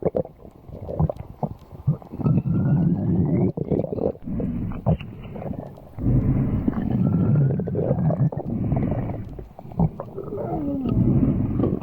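Stomach growling: low rumbles and gurgles with squeaky rising and falling whines, coming in several long waves with short lulls between.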